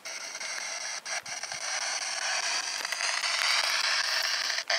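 PSB-7 spirit box, a handheld radio sweeping through stations, giving a steady hiss of static that grows a little louder, broken by a few brief clicks and dropouts.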